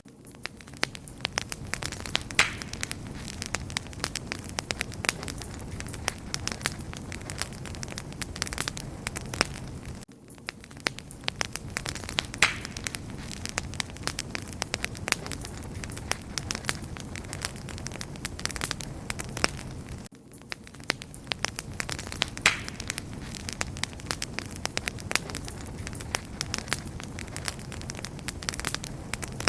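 Wood fire burning with dense, steady crackling and popping over a low rumble. The same stretch of crackling repeats about every ten seconds, with a brief drop in level at each join.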